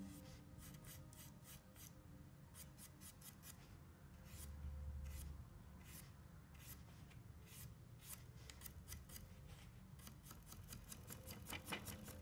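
A thin paintbrush tapping and scraping against the palette and canvas while working paint, heard close up as a string of faint, irregular crisp ticks and scratches. There is a brief low bump about five seconds in.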